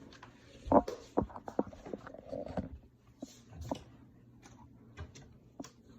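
Irregular knocks, clicks and light clatter of objects being moved and handled while rummaging through containers to find a hidden toy, with the strongest knock about a second in.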